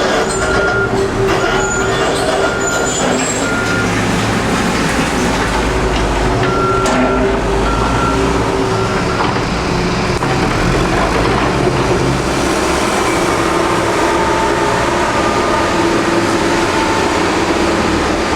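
Heavy road-construction machinery running steadily, with a backup alarm beeping in the first few seconds and again briefly around the middle.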